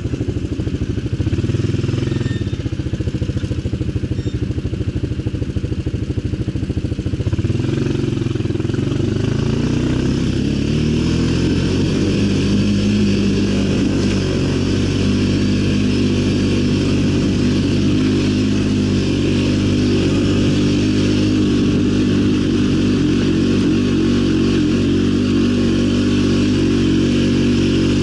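ATV engine idling with a choppy, pulsing beat, then revving up over several seconds and holding a steady, higher speed for the rest of the time.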